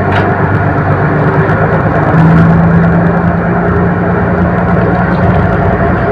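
Fishing boat's engine running steadily and loudly, with a higher hum coming in about two seconds in.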